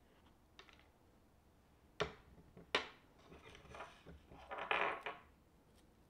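A small spoon clinks twice against a glass jar, then scrapes and rustles through dried loose herbal tea as it is scooped out, the rustle loudest near the end.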